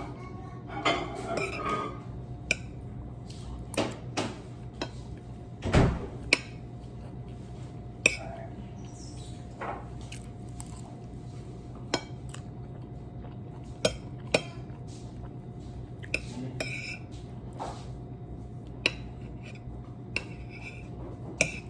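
Metal spoon clinking and scraping against a ceramic plate of rice in scattered sharp clicks every second or so, over a steady low hum. A heavier, dull thump about six seconds in.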